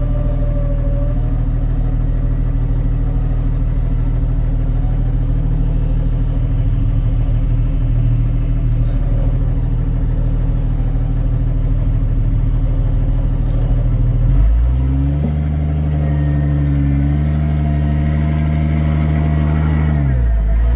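Off-road Jeep engine running steadily under a winch recovery on a hill. About fourteen seconds in, the engine note steps up to a higher pitch and holds there, then drops back just before the end.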